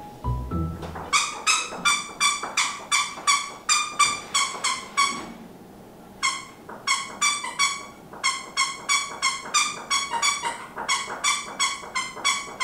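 Squeaky toy doll squeezed over and over, giving short shrill squeaks about three to four a second, with a brief pause about five and a half seconds in.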